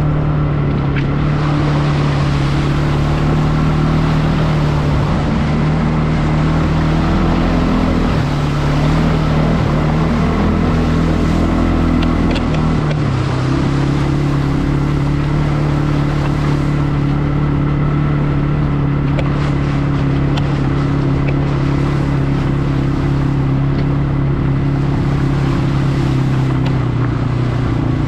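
CFmoto CForce 520 ATV's single-cylinder engine running steadily under way. Its note dips briefly about halfway through, then settles again.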